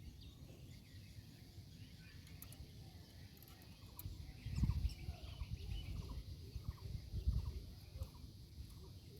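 Outdoor rural ambience with small birds chirping repeatedly, over a low rumble on the microphone that swells twice around the middle.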